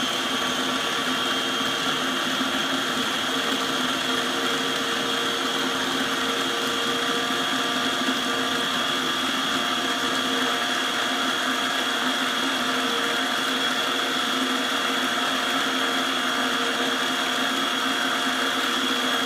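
Small electric food processor running steadily at full speed with a constant high motor whine. It is blending garlic, salt and egg white while oil is drizzled in through the feed tube to build the emulsion.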